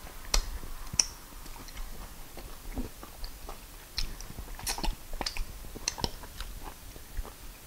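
A person chewing fufu with peanut soup, eaten by hand. Sharp wet mouth smacks and clicks come at irregular moments, about one every second or so.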